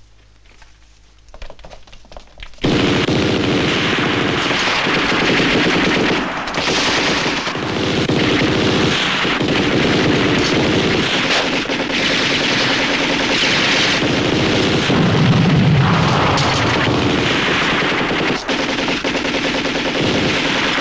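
Sustained automatic gunfire from a submachine gun firefight, starting suddenly about three seconds in after a quiet moment and then continuing loud and unbroken, with many shots overlapping.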